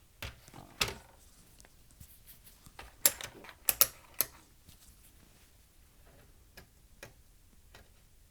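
Scattered light clicks and knocks, the loudest few about three to four seconds in, from a multimeter and its test probes being picked up and handled.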